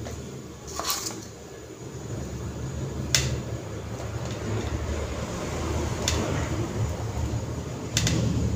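Metal spoon clinking a few times against a steel plate and bowl while spreading a thick chocolate paste, over a low background rumble that grows louder partway through.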